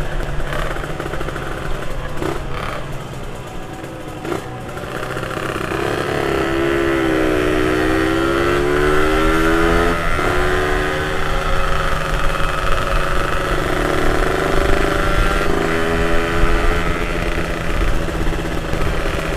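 Motorcycle engine heard from the rider's seat while riding, with wind noise on the microphone. It eases off briefly about four seconds in, then climbs in pitch as it accelerates and drops suddenly about ten seconds in.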